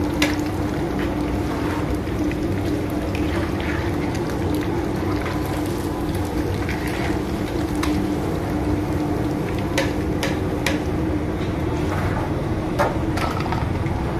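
Battered fish pieces deep-frying in a large karahi of hot oil, the oil sizzling and bubbling steadily over a low steady hum. A few sharp metal clinks of the steel skimmer against the pan and tray come at the start and several times in the last few seconds.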